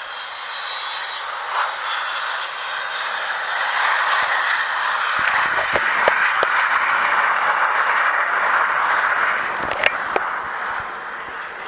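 Snowbirds' CT-114 Tutor jets flying low in formation: a steady jet roar that grows louder over several seconds and eases near the end. A few sharp clicks sound near the middle and again near the end.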